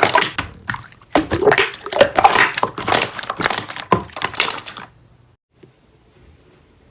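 Slime being squeezed and pressed by hand, giving dense crackling and popping that stops about five seconds in.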